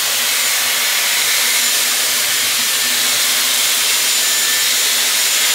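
Dyson Airwrap hair styler with its curling barrel attached, running and blowing a steady rush of air while it curls a section of hair.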